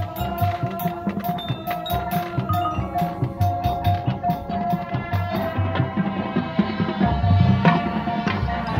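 Marching band playing: held brass notes over a steady drum beat, with marimbas and other mallet percussion of the front ensemble.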